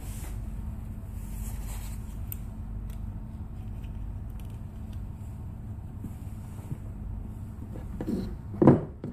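Small handling noises of pistol parts over a steady low hum, then near the end the slide of a Walther P22 is pushed onto its frame and seats with a sharp clack, the loudest sound.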